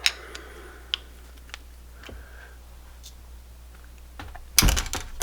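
Light metal clicks and taps of hand tools working on the valve adjusters, with a short, loud burst of rattling metal clatter near the end.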